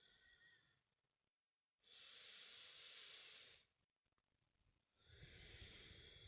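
Slow, deep breaths close to the microphone. One breath trails off at the start, then two long breaths of about two seconds each follow, with short silent pauses between them.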